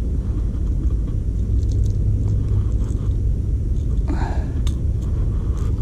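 Wind buffeting the camera's microphone, a steady low rumble, with a few faint clicks from hands and the lure's hooks as a lure is worked out of a bass's mouth.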